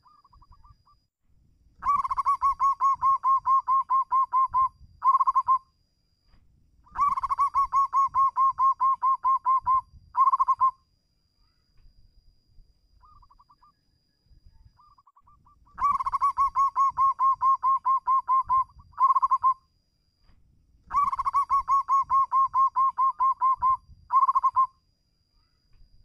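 Zebra dove (perkutut) cooing: four bouts, each a fast, even run of rolling coos followed by a short trailing burst, with a few soft single notes in the gaps between bouts.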